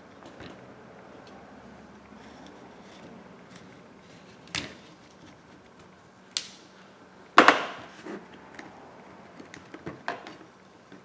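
Scattered sharp knocks and clicks of a metal pry tool and a phone handled on a workbench mat while the screen is being pried. The loudest is a close pair of knocks about seven and a half seconds in.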